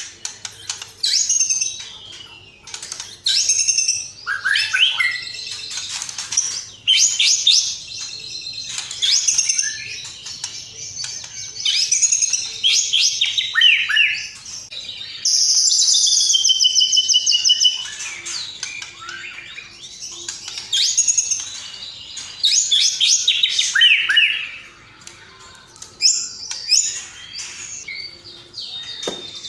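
Songbird song from a bird-song training (masteran) recording: fast, varied chirps, whistles and trills in short phrases with brief pauses, and one longer dense, buzzy phrase about halfway through.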